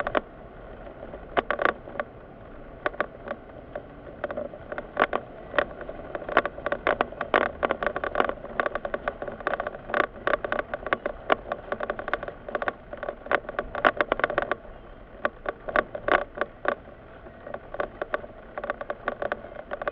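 Cabin of a Mitsubishi car moving slowly in traffic: a steady low rumble of engine and road, under frequent irregular clicks and rattles, several a second in uneven clusters. The clicks ease off for a few seconds around the three-quarter mark.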